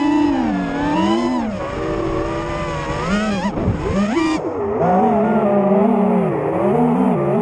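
Racing quadcopter's four brushless motors and twin-blade 5-inch props whining, the pitch swooping up and down every second or so as the throttle changes, heard up close through the onboard camera.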